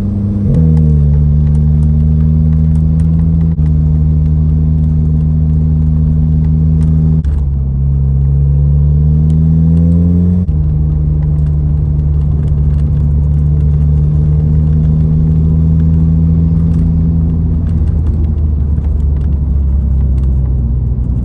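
2006 VW Golf GTI's 2.0-litre turbo four-cylinder engine pulling under load up a long hill, running smoothly with no misfire on its new coil packs. Its pitch drops sharply about 7 seconds in, climbs again, then drops about 10 seconds in and holds steady.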